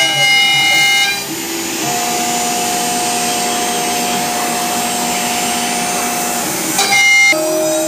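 Laguna CNC router running: a steady whine over a rushing hiss. The pitch of the whine changes about a second in and again near the end.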